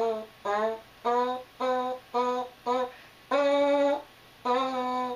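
A French horn mouthpiece buzzed with the lips alone, tongued note by note. A run of short buzzed notes, the first few sliding down in pitch as they start, then two longer held notes near the end.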